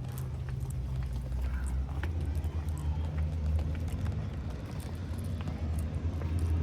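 Car engine running at low revs, a steady low hum, with scattered faint clicks.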